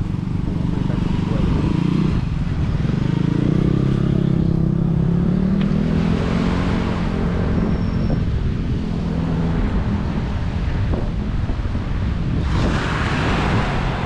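A motor vehicle engine passing along the road, its pitch sliding up and down over the first half. A louder rush of noise comes near the end.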